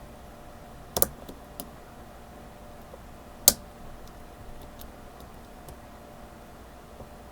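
Metal clicks of a lock pick and tension wrench working inside a Master Lock 911 padlock: a quick double click about a second in, a lighter click just after, and a louder single click midway, followed by faint scattered ticks.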